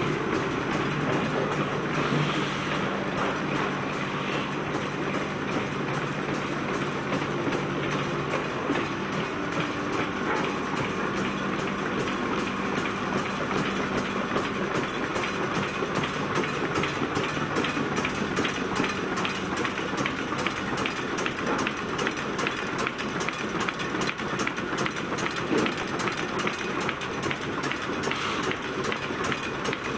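GS-1100 folder gluer running in production, a steady mechanical clatter from its belts, rollers and folding sections with a rapid ticking as box blanks feed through. A low steady hum sits under it through the first half.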